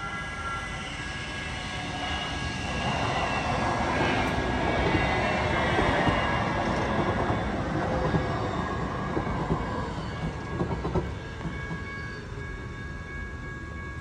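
TriMet MAX light-rail train passing through a grade crossing, swelling to its loudest around the middle and fading after a few sharp wheel clacks about eleven seconds in. The crossing's warning bell rings steadily behind it.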